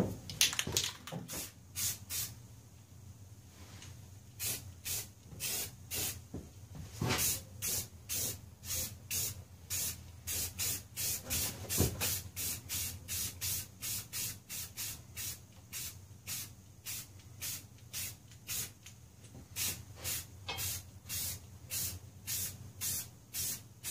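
Aerosol spray-paint can hissing in many short bursts, about two a second with a brief pause early on, as a coat of paint goes onto a fiberglass body repair.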